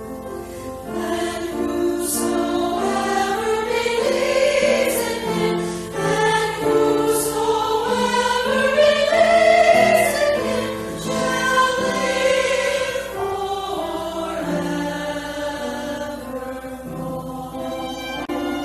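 Choir singing a sacred piece, the voices swelling loudest about halfway through and easing off toward the end.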